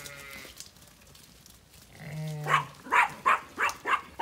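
A sheep bleats faintly at the start and again, deeper, about two seconds in. Then a dog barks quickly about six times, roughly three barks a second.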